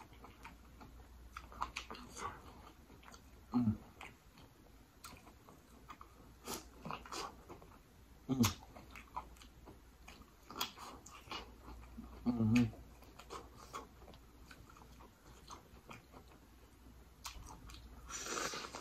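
Close-miked eating of sauce-dipped corn on the cob: biting and wet chewing with scattered mouth clicks and smacks, and a few short low hums. Near the end comes a louder breathy rush of noise.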